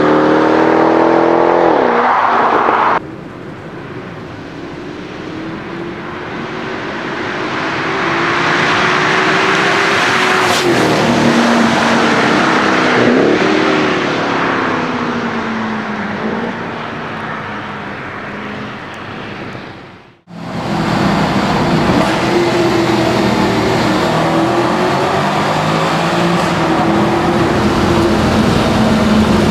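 Mercedes-Benz E63 AMG's V8 with an X-pipe exhaust, revving and driving in a few edited clips, its pitch rising and falling with the revs. The sound cuts abruptly about 3 seconds in and again about 20 seconds in.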